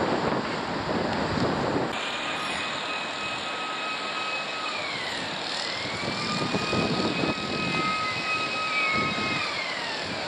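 Wind buffeting the microphone in gusts. About two seconds in, a thin high whine starts; it dips in pitch and climbs back around the middle, then falls away near the end.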